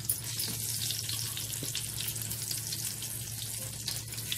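Round slices of turmeric-and-salt-coated eggplant sizzling in hot refined oil in a flat non-stick frying pan as more slices are laid in, with a steady crackle of spattering oil.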